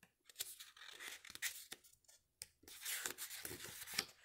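Paper pages of a picture book rustling and being turned by hand: faint, irregular crinkling and scraping in two spells, the second near the end.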